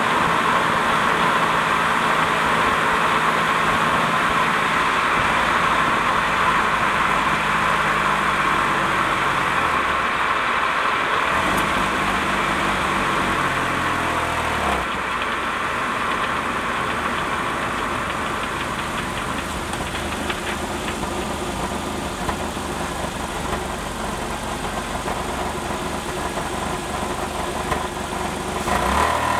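Series II 3800 V6 running, heard from under the car beside the Getrag 282 transaxle, with a steady metallic rattle that the owner puts down to the transaxle, not in time with the engine, and to the muffler. The engine note falls twice near the middle.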